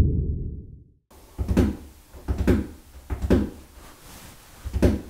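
Fingers drumming on the sheet-metal hood of a 2010 Volvo V70: a series of knocks, roughly one or two a second. In the first second a low whooshing rumble fades out.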